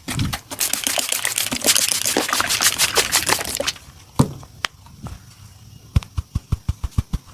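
Massage strokes by hand: about three seconds of fast, brisk rubbing, then a single sharp click, then quick rhythmic slapping strokes at about eight a second near the end.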